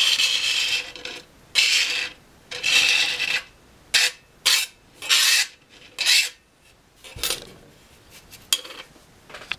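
Short, rough scraping strokes, about a dozen in uneven rhythm, of finely chopped match-head and road-flare powder being scraped across a hard surface and into a small container; the strokes are loud at first and grow fainter and sparser near the end.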